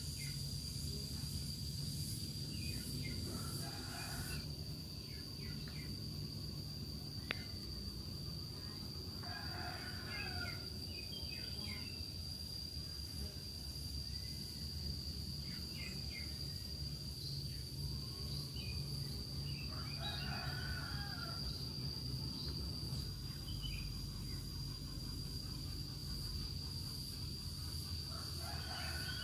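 Outdoor ambience: roosters crowing in the distance four times, roughly every eight to ten seconds, over a steady high-pitched insect drone and a low rumble. A single short click about seven seconds in.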